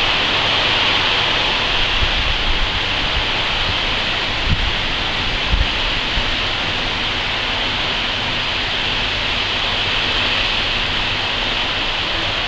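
Heavy rain pouring down steadily in a sudden windstorm, with a few low bumps of wind hitting the microphone about two, four and a half and five and a half seconds in.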